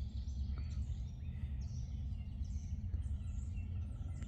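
Several wild birds chirping in short calls over a steady low rumble.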